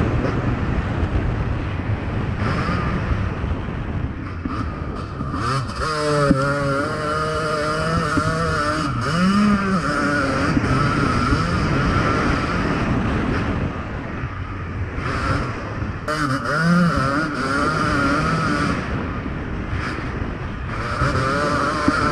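Motocross bike engine being ridden, revving up and down repeatedly under a dense rumble, with its pitch climbing and falling most clearly about six to ten seconds in and again around seventeen seconds.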